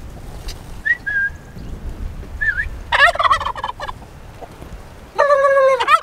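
Turkey tom gobbling twice, a rapid rattling call about three seconds in and again near the end. A couple of short faint high calls come before the first gobble.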